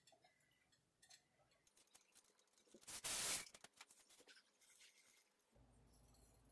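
Near silence with faint clicks of handling at the stove, and one brief scrape about three seconds in. A faint steady hum comes in near the end.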